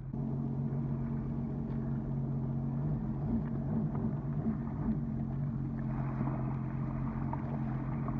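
Sea-Doo Fish Pro jet ski engine idling steadily, its pitch wavering briefly a few seconds in, with water washing around the hull.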